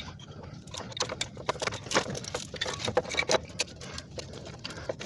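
Quick, irregular metallic clicks and taps of hand tools and parts being worked in an engine bay, as a new starter motor is fitted and its bolts started.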